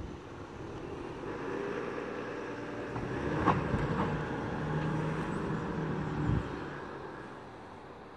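Toyota Land Cruiser's engine running as the car pulls away down the street, fading near the end. Sharp knocks about three and a half seconds in are the loudest sounds, with a low thump a little after six seconds.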